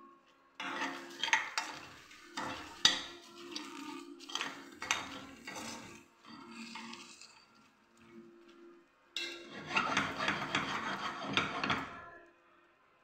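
Metal spoon stirring pumpkin seeds in a metal pan: the seeds rattle and the spoon scrapes and clinks against the pan in two spells of stirring, with a short pause between them.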